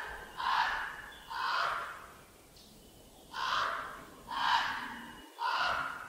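Recorded call of a southern African wild animal: a series of hoarse, breathy calls about a second apart, five in all, with a short pause after the second.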